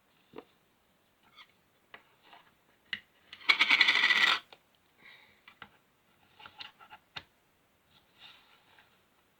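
Small hard plastic figure pieces clicking and being handled, with a loud rattle of many small pieces clattering together about three and a half seconds in, lasting about a second.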